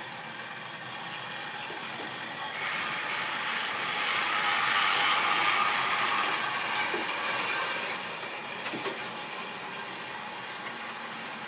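Model railway train running along the track: the locomotive's electric motor whirring and the wheels rattling over the rails. It gets louder a few seconds in as the train passes close, then eases off.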